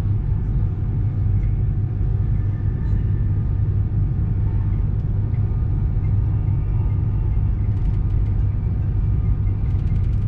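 Running noise heard inside the carriage of an Avanti West Coast passenger train travelling at speed: a steady low rumble, with a few faint ticks near the end.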